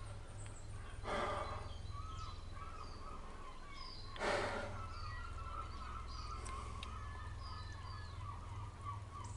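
Quiet forest ambience with small birds chirping faintly throughout. Two short noisy swells come about one second and about four seconds in.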